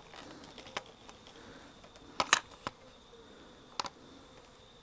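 A few light clicks and taps of the hedge trimmer's plastic pole parts being handled and fitted together, a cluster of them a little past halfway, over a faint steady high hum.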